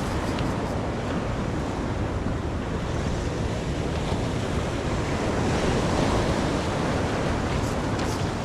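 Steady wash of ocean surf with wind blowing across the microphone.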